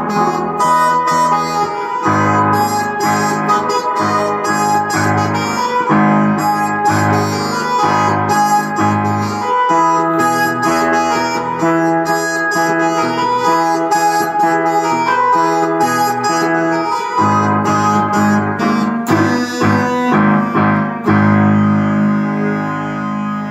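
Keyboard music played live on two electronic keyboards at once: a digital piano and a second keyboard voice together. Chords and a moving bass line with quickly struck notes throughout.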